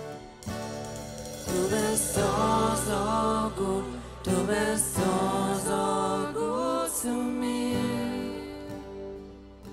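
Live worship band playing a slow song, with a sung melody over the chords from about a second and a half in until around seven seconds; the music then gets quieter near the end.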